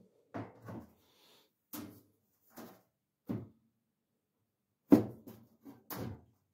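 Side panel of a condenser tumble dryer being worked loose and lifted away from the cabinet, knocking and clattering against it in an irregular run of knocks. The loudest is a sharp clunk about five seconds in.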